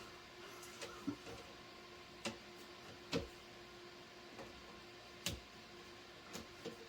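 Scattered sharp clicks and light knocks of plastic box-fan parts being handled and fitted together, at irregular intervals about a second apart, over a faint steady hum.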